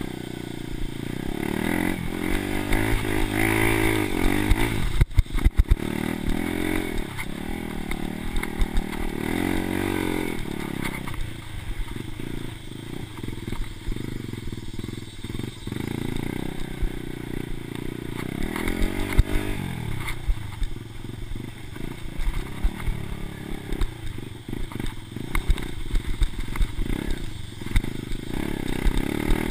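Dirt bike engine revving up and down as it is ridden, the pitch repeatedly climbing and dropping with throttle and gear changes. A cluster of sharp knocks and rattles comes about five seconds in.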